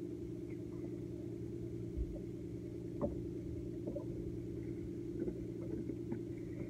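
Steady low hum of a boat engine running, with a couple of faint knocks about two and three seconds in.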